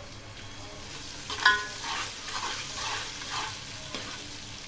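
Onions and whole green chillies sizzling in hot oil in a metal pot, with a metal spoon clanking once against the pot about a second and a half in, then scraping through them in strokes about twice a second as they are stirred.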